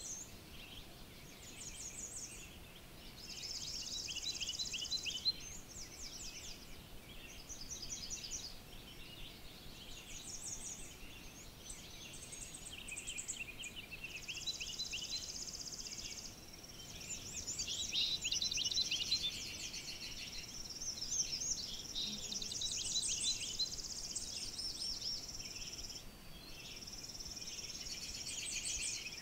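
Chorus of several songbirds singing at once: overlapping quick chirps, trills and high buzzy phrases, one after another without a break.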